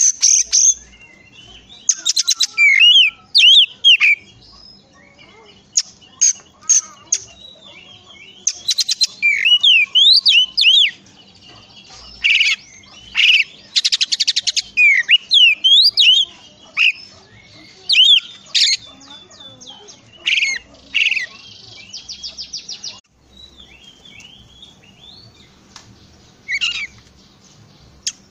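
Oriental magpie-robin singing in loud bursts: fast rattling trills mixed with sweeping whistled notes, phrase after phrase with short pauses between.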